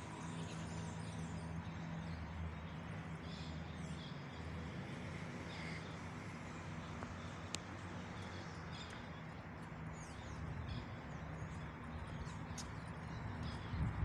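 Outdoor park ambience: a steady low hum of distant traffic with scattered short bird chirps. There is one sharp click about halfway through and a few knocks near the end.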